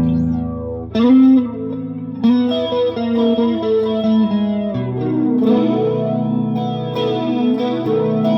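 Japanese Fender Telecaster played through a Vox AC15 amp with a modulation effect, chords and single notes struck every second or two and left to ring, a few of them bent in pitch about a second in.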